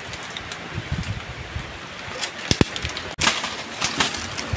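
Dry nipa palm fronds and fallen leaves rustling and crackling as someone pushes through the thicket, with a dull knock about two and a half seconds in.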